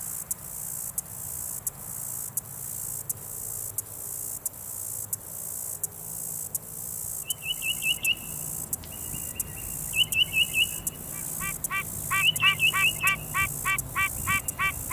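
Outdoor spring chorus: a high-pitched insect trill pulsing steadily about two or three times a second, joined about halfway through by birdsong. First come short quick chirp runs, then a songbird's fast series of repeated down-slurred whistled notes.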